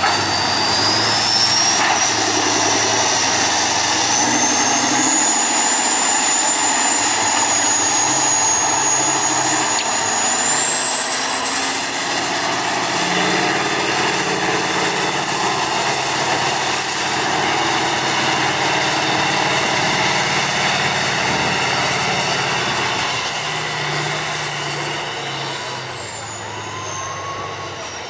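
Tatra 815 6x6 trial truck's diesel engine working hard under load, its pitch shifting with the throttle. A high whine climbs through the first half, holds, and falls away near the end, where the engine eases off a little.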